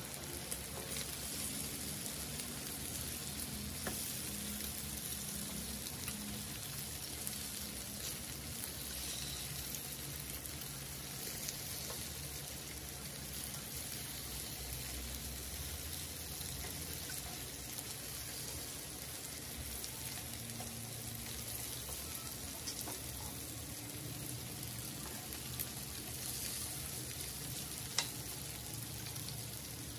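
Marinated meat slices sizzling steadily on an electric grill plate, with a few sharp clicks of metal tongs against the plate as the pieces are turned, the loudest near the end.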